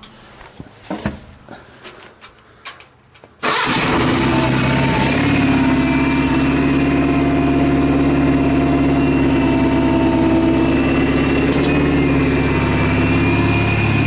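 A few faint clicks and knocks, then about three and a half seconds in the Case 1818 skid steer's engine comes in abruptly and runs steadily and loud, its pitch dipping briefly near the end.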